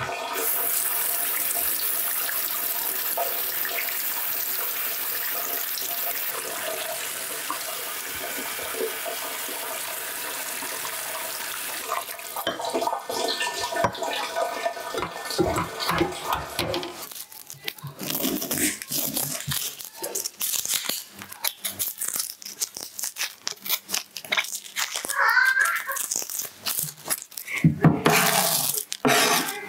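Tap water running into a stainless steel sink as beef skin is rinsed, a steady rush for about twelve seconds before it stops. After that come irregular knocks and clicks of handling, and knife strokes on a cutting board near the end.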